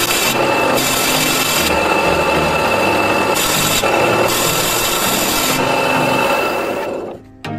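A power tool working wood: a steady motor hum under loud rasping noise that changes in texture every second or so. It fades out near the end.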